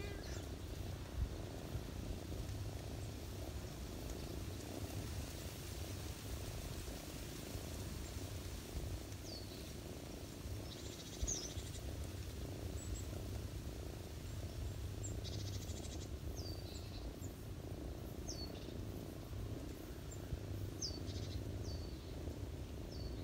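Ginger cat purring steadily up close while being scratched under the chin. Small birds chirp faintly in the background, a scattering of short high chirps from about nine seconds in.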